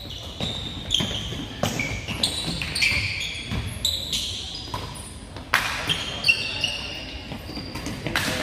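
Basketball game in a gym: sneakers squeak briefly and repeatedly on the court while the ball bounces, over voices echoing in the hall.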